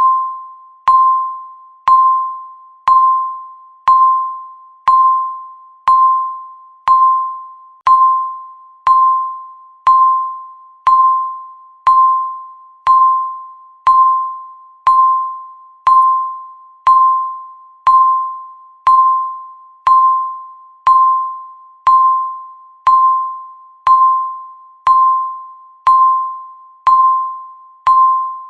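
Countdown timer beep sounding once every second, one tone at the same pitch each time, each beep dying away quickly before the next.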